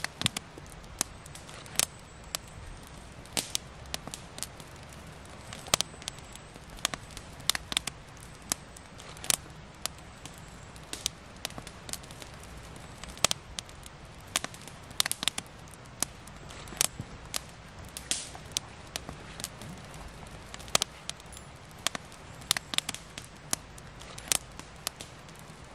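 Small wood campfire crackling, with sharp irregular pops, a few a second, over a low steady background.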